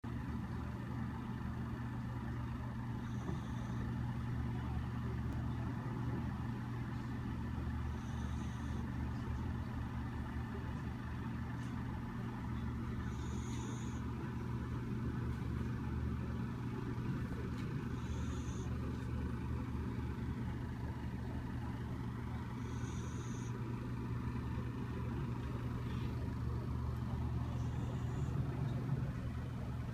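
Sleeping dog snoring: a short, thin whistling wheeze on each breath, about every five seconds, over a steady low hum.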